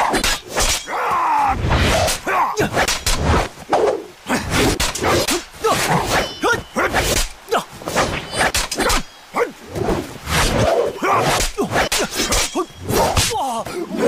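Sword practice: rapid swishes of blades through the air and sharp whacks and clashes one after another, with short vocal grunts in between.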